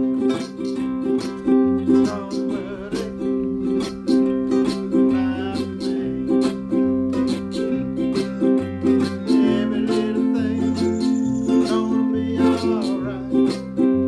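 Several ukuleles strumming together in a steady, even rhythm over a low bass line that changes note every second or so.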